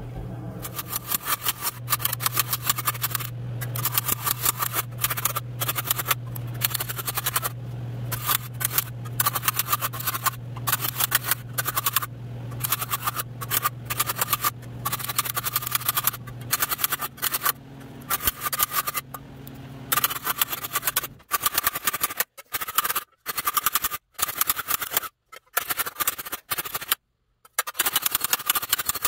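Hammer blows on sheet steel backed by a steel dolly, several ringing strikes a second, with brief pauses in the later part. Hammer-on-dolly stretching of the panel to raise a dome. A steady low hum sits under the first two-thirds and stops about two-thirds of the way in.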